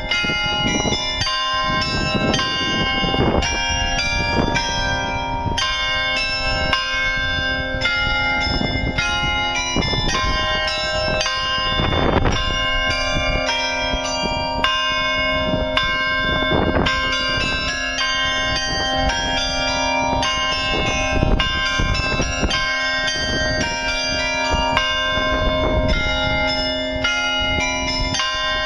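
Carillon bells of the New Ulm Glockenspiel clock tower playing a tune. Notes are struck one after another in a steady stream and ring on, overlapping each other.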